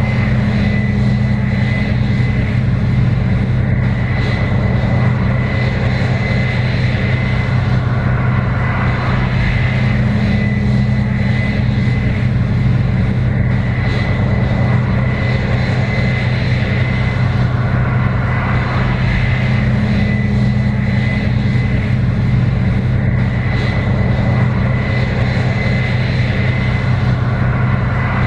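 Case IH 7120 Axial-Flow combine running steadily under load while harvesting corn: a continuous diesel engine drone with a steady high whine above it, and a deeper hum that swells and fades about every ten seconds.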